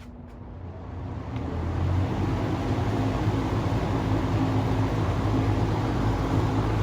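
Vintage Lasko 20-inch two-speed box fan starting up: its motor hum and the rush of air rise over about two seconds, then run steady. It is pretty quiet for its size.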